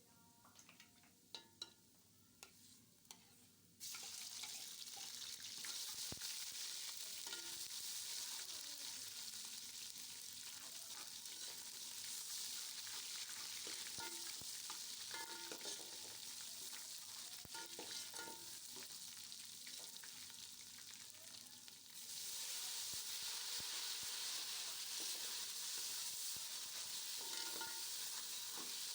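Food frying and sizzling in hot oil, starting suddenly about four seconds in, with a spoon knocking and scraping against the pot as it is stirred. The sizzle gets louder again about two-thirds of the way through.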